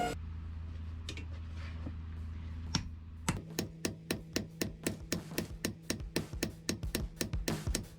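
Hammer blows on hot steel at the anvil, forging a railway clip into a sword blade. A single strike comes a little before three seconds in, then a quick, even run of about four blows a second starts over a steady low hum.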